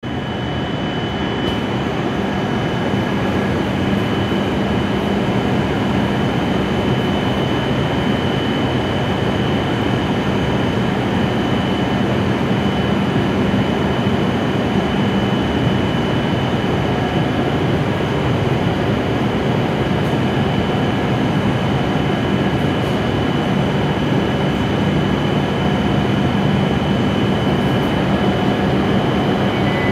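W7 series Shinkansen train standing at the platform, its onboard equipment giving a steady hum with a high, constant whine.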